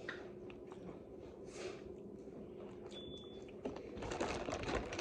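Quiet eating sounds from a seafood meal: soft chewing and mouth noises with scattered small clicks, busier and a little louder after about three and a half seconds.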